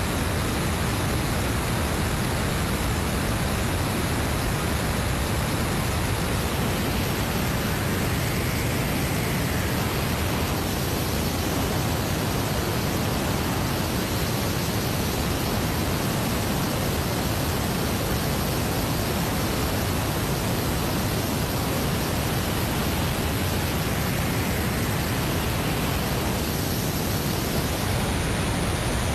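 Steady, unchanging rush of airflow and turbofan engine noise from an airliner in flight, picked up by a camera mounted outside on the fuselage.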